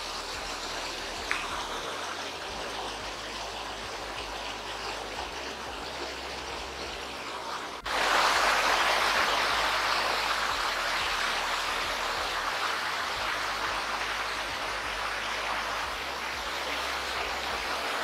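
Small waterfall splashing down over rocks: a steady rush of falling water. It jumps abruptly louder about eight seconds in.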